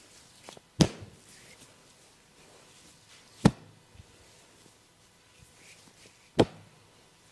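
Hand strikes of a massage: three sharp slaps on the body, evenly spaced about three seconds apart, with faint small taps and rubbing between them.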